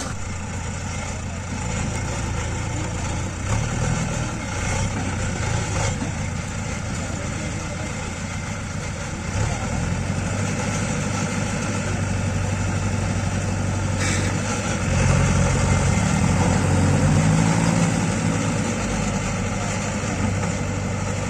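Heavy diesel engine running steadily near idle, picking up speed and growing louder for a few seconds past the middle before settling back.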